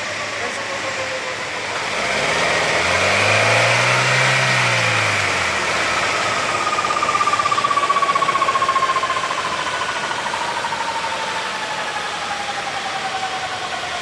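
Gear whine from a faulty differential assembly in a 2017 Honda City while driving above about 50 km/h, a thin tone that slowly falls in pitch over the road noise. A low drone swells and fades a few seconds in.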